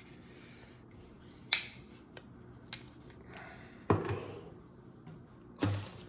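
Handling of camcorder accessories and plastic packaging: a few sharp clicks and knocks, about four, with the loudest around one and a half and four seconds in.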